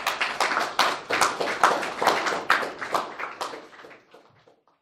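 Audience applauding with many overlapping hand claps, thinning out and dying away near the end.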